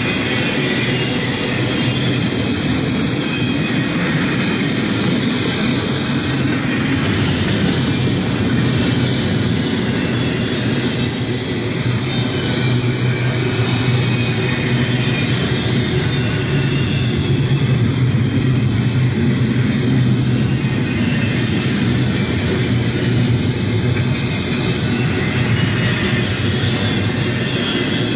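Norfolk Southern double-stack intermodal freight cars rolling past on the rails: a loud, steady rumble and rattle of steel wheels and car bodies.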